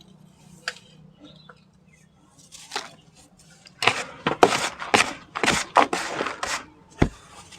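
Dry sand-cement chunks crumbling: a few faint clicks, then a dense run of crisp crackling crunches from about halfway in, and a single sharp knock near the end.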